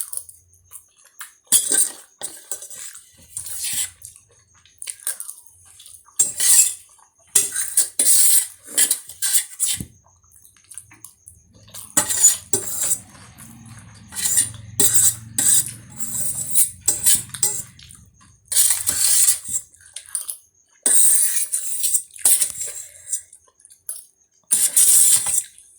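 Close-miked eating of spicy Maggi instant noodles, with cutlery against the dish, heard as about a dozen irregular short bursts of hiss and clatter with gaps between them.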